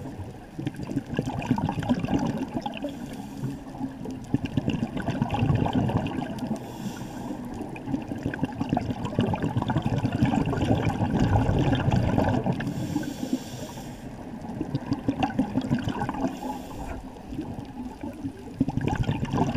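Scuba divers breathing through regulators underwater: exhaled bubbles gurgle and crackle steadily, and a short hiss, typical of a regulator inhalation, comes every few seconds.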